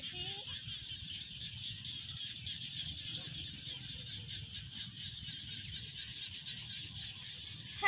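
Quiet outdoor ambience: a steady high-pitched chorus of insects over a low, uneven rumble.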